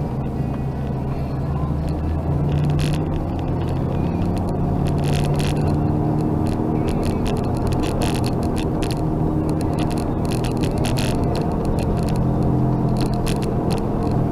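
Engine and road noise inside a moving car's cabin: a steady low drone, with short higher-pitched noisy bursts every second or two.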